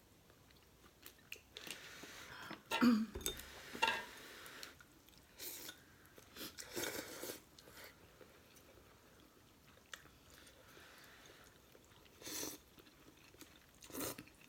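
A person eating Mama pork-flavour instant noodles close to the microphone: chewing with a run of short, wet mouth noises, the loudest about three to four seconds in and smaller ones later.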